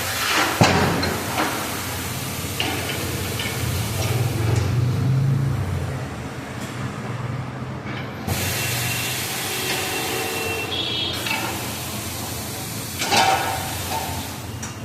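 Compressed air hissing in two long stretches of several seconds each, with a low hum underneath, from a tyre-changing machine at work on a motorcycle wheel.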